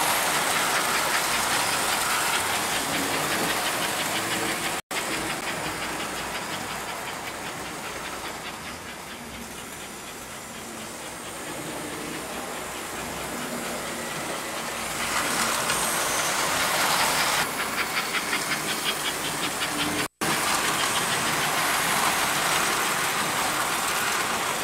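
American Flyer S gauge model trains running on steel track: a steady rattling rumble with quick rhythmic clicking of wheels over the rail joints, louder for a few seconds about fifteen seconds in as a train passes close. The sound cuts out briefly twice.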